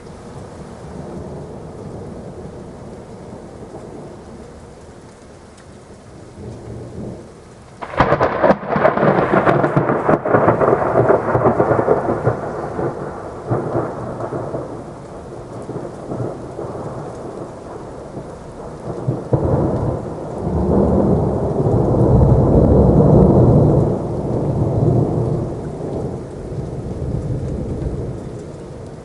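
Thunderstorm with steady rain: a sudden sharp thunderclap about eight seconds in that rumbles away over several seconds, then a long, low rolling peal of thunder later on.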